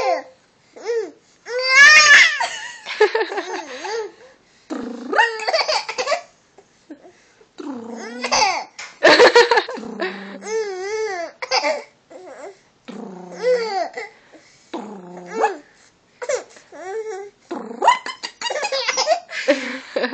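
Baby laughing in repeated bursts with short pauses between them, the laughs high-pitched and wavering.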